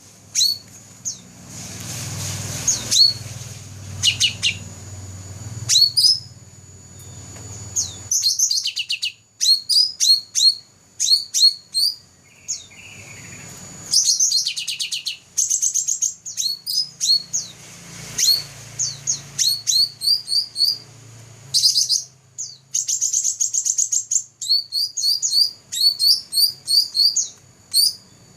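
Cucak rante songbird singing in quick runs of high, sharp chirps and trills, with short pauses between phrases. A low hum sits under the song in the first eight seconds and again a little past the middle.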